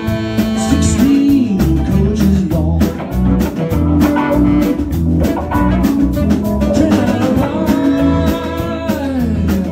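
Live blues-rock band playing: an electric guitar leads with bent notes over electric bass and a steady drum-kit beat.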